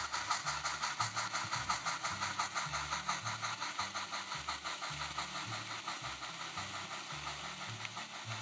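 HOn3 model steam locomotive's sound decoder playing a steady, rhythmic steam chuff at about five chuffs a second, slowly growing fainter as the locomotive moves away. A low hum from the running model comes and goes underneath.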